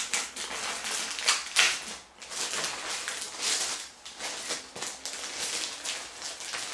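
Irregular rustling and crinkling of plastic bags, paper and cardboard as hands lift LEGO instruction manuals and a sticker sheet out of the set's box.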